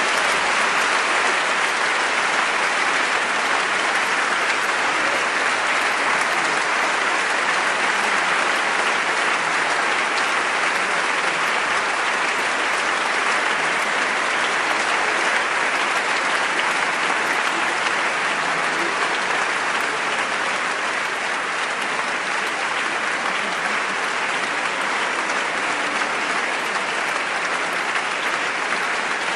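Large audience applauding steadily: dense, even clapping that rises just as the music ends and holds without a break.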